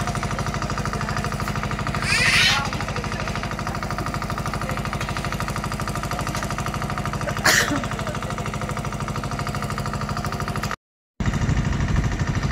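An engine running steadily with a fast, even pulse, with two short noisy bursts about two seconds in and again after seven seconds. The sound cuts out briefly near the end.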